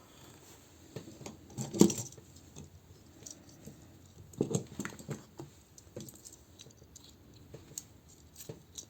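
Plastic action-figure parts being handled and fitted together: scattered light clicks and rattles, with a louder knock about two seconds in and another about four and a half seconds in.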